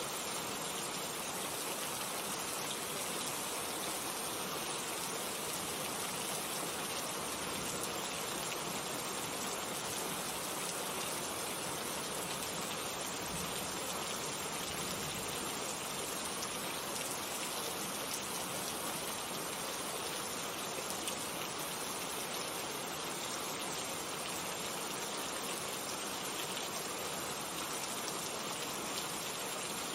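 Steady rain, a continuous even hiss of falling water with the patter of drops on a surface.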